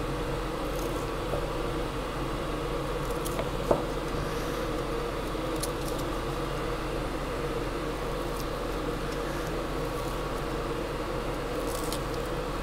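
Steady mechanical hum and hiss of a fan-like appliance running in a kitchen. Over it come a few light clicks of knife and cutting-board work, the sharpest about four seconds in.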